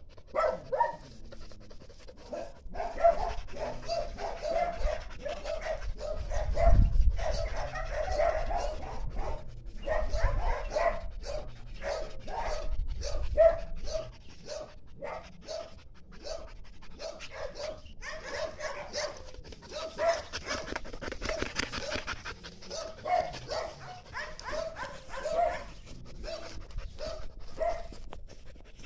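A dog barking and whimpering in short, quickly repeated calls, with some panting. A couple of low thumps come a third of the way in.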